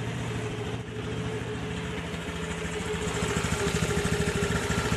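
Scooter engine idling steadily after a kick start with the ignition switch bypassed and no key fitted, getting louder about three seconds in.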